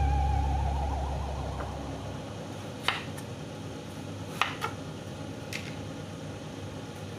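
Background music fading out over the first two seconds, then a few short sharp knocks of a kitchen knife cutting through winter melon onto a wooden cutting board.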